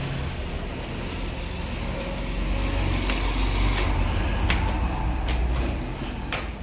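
Steady low rumble of a motor vehicle on the road, with a few light clicks in the second half.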